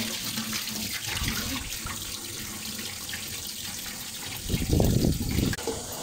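Water draining out of a washing machine's drain hose onto a tiled floor, a steady running rush with a louder burst about four and a half seconds in; the hose had been clogged and is now flowing freely.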